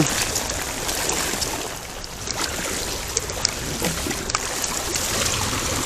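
Rain falling steadily, with scattered small ticks of drops.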